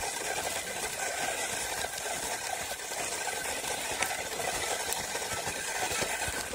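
Small electric gear motors of a wired remote-controlled robot car whirring steadily with a faint whine as it drives over rough, lumpy soil.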